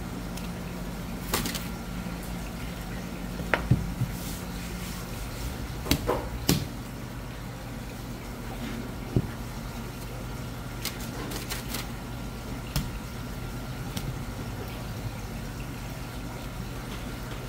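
Steady low hum in the background, with scattered sharp knocks and taps as plates and fish are handled and a long sashimi knife works fish fillets on a plastic cutting board.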